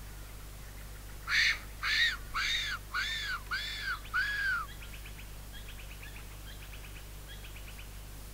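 Fox whistle blown as a lure call: six short squealing notes in a row, each rising and then falling in pitch. After them come faint quick chirping ticks.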